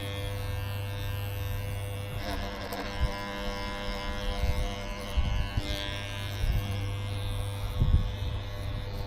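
Handheld electric facial cleansing brush machine buzzing steadily as its rotating brush head is worked over a lathered face, with a few soft low thumps partway through.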